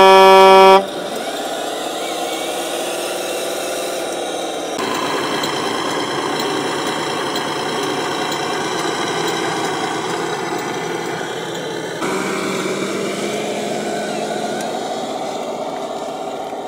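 A loud truck horn blast cuts off about a second in, followed by the steady engine sound of an RC MAN logging truck running, its pitch wavering and changing abruptly twice.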